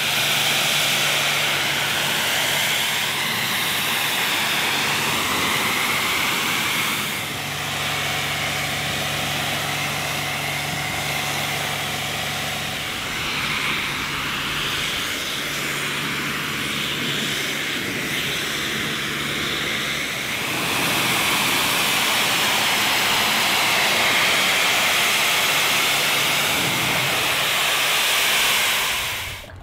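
Pressure washer lance spraying a water jet over a car's painted bodywork, rinsing off snow foam: a loud, steady hiss of spray with the washer's low pump hum coming and going, getting louder about two-thirds of the way through.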